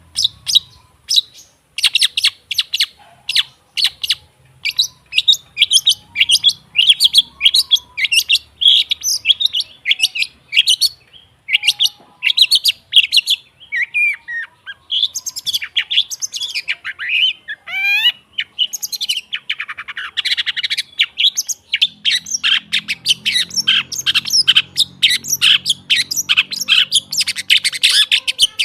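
Long-tailed shrike calling: a fast run of harsh, repeated chattering notes, about three a second, with a few clear whistled glides in the middle. The notes grow denser and quicker near the end. This is a lure recording meant to set a silent caged shrike singing.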